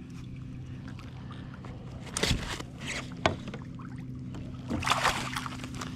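Water splashing and sloshing against a kayak as a hooked flounder is reeled in and fought, in a few short bursts about two, three and five seconds in, one a sharp click. A faint steady hum runs underneath.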